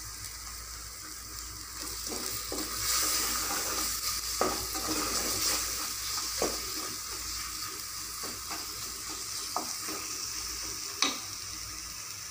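Masala sizzling in hot oil in an aluminium pressure cooker while a spatula stirs it, scraping through the mix. Several short knocks of the spatula against the pot, the sharpest near the end.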